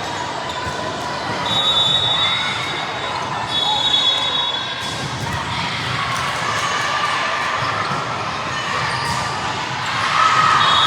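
Basketball game in a gym: a ball bouncing on the hardwood amid a crowd's echoing chatter and calls, with a few short high-pitched squeals.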